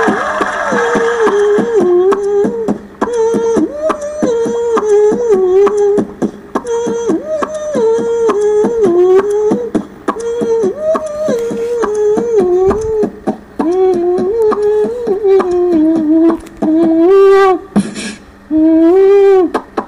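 A mimicry artist making a tune with his mouth into a microphone: a run of short, wavering pitched notes, about two to three a second, with a higher rising figure near the end.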